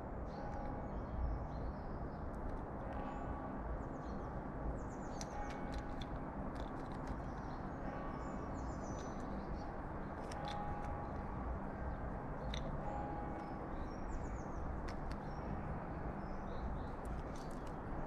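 Scattered sharp taps and clicks of a carrion crow's beak pecking shrimp from a tray, over a steady low rumble, with faint chirps of small songbirds.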